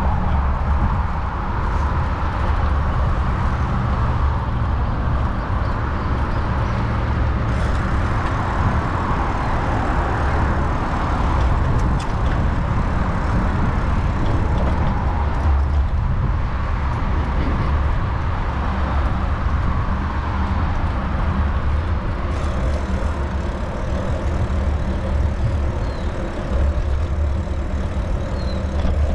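Road traffic passing on an avenue alongside, swelling and fading every several seconds, over a steady low rumble of wind on the microphone of a moving bicycle.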